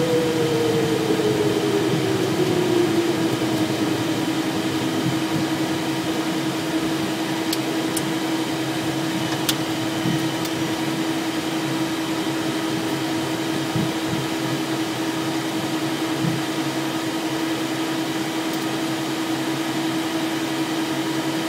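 Cockpit noise of a Cessna Citation Excel taxiing off the runway after landing: the steady hum and air rush of its PW545 turbofans at low power and the cabin air. A tone falls in pitch over the first few seconds as the engines spool down, then holds steady, with a few faint ticks near the middle.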